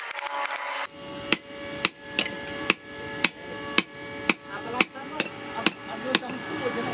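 Hand hammer striking a steel axe head, forged from car leaf spring, on a steel post anvil: about eleven blows, roughly two a second, each leaving a metallic ring.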